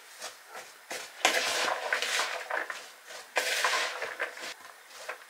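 Chopped raw potato and onion pie filling being handled and mixed in a bowl: a few light knocks, and two longer stretches of rustling and scraping, about a second in and again past three seconds in.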